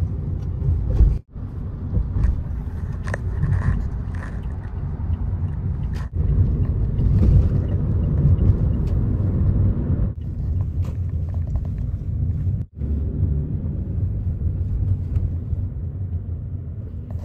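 Car interior road noise while driving: a steady low rumble of tyres and engine heard from inside the cabin, breaking off briefly three times.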